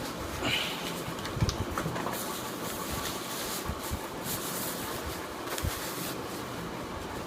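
Packaging being handled: rustling and a few light knocks over a steady background noise.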